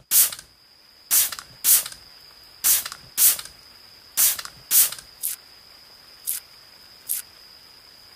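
Trigger spray bottle squirted about ten times in short, sharp sprays, most in pairs about half a second apart, the later ones fainter. A faint, steady high-pitched tone runs underneath.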